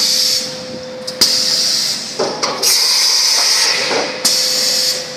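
Mori Seiki MV Junior vertical machining centre giving four short bursts of compressed-air hiss, about one every second and a half, each opening with a sharp click, over a steady hum.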